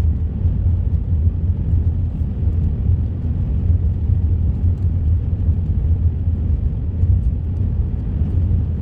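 A vehicle driving along at steady speed: an even low road and engine rumble, heard from inside the cab.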